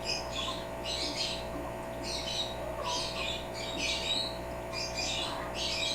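African grey parrot making a run of short, raspy, hissing bursts, about seven of them, roughly one every three quarters of a second.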